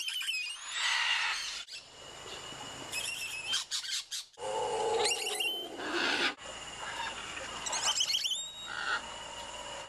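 Spider monkeys whinnying: short runs of high, quavering calls, heard several times.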